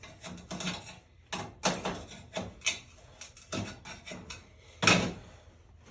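Irregular metal clicks and knocks of a tool prying and tapping at a stuck old centerpiece inside a muffler pipe. The loudest knock comes about five seconds in.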